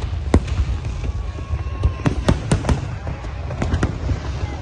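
Fireworks display: irregular sharp bangs over a continuous low rumble, with several bangs in quick succession about two seconds in.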